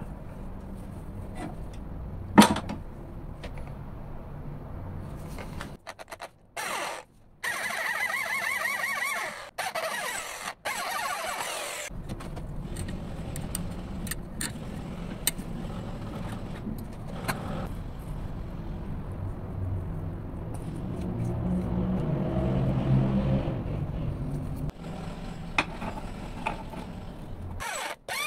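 A steady motor hum with a sharp metal clink about two seconds in as parts are handled in a vise. Later a drill bores into a steel block, its motor running louder under load for a few seconds.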